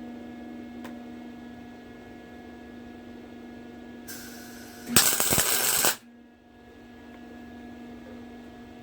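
Tack weld on a steel truss plate being laid onto an axle housing: a short hiss, then about a second of loud crackling welding arc that cuts off suddenly, over a steady electrical hum.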